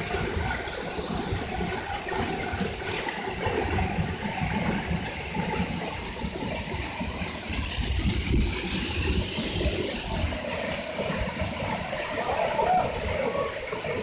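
Waterfall pouring, a steady rush of falling water with a low rumble under it; it grows louder and hissier from about six to ten seconds in.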